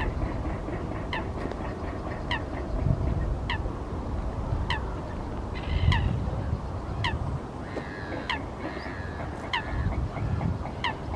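Egyptian geese calling in harsh honking bursts, over a bird's sharp downward-sliding call repeated about once a second. A low rumble runs underneath.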